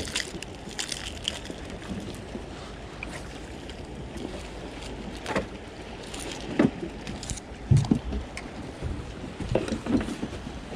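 Scattered metallic clicks and a few sharper knocks from needle-nose pliers working a minnow lure's treble hooks out of a corvina's mouth, over a steady low rush of wind and water on an open skiff. The loudest knocks come about two-thirds of the way in.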